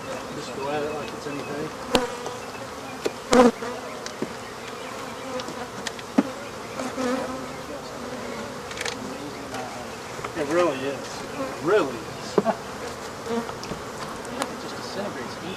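A swarm of disturbed African honey bees buzzing, single bees flying close past with their pitch rising and falling. A few sharp knocks, the loudest about three and a half seconds in.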